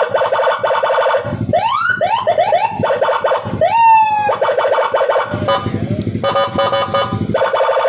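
Electronic police-escort siren cycling through its tones: rapid pulsing bursts, then a run of short rising whoops, a fast upward sweep about four seconds in, and back to pulsing with a warbling pattern. A deeper tone sounds underneath now and then, longest a little past the middle.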